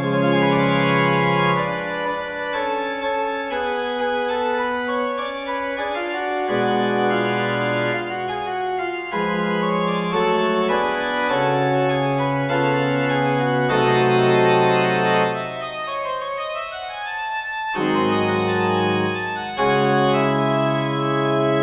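Background music: slow, sustained organ chords, each held for a second or two before changing, with no percussion.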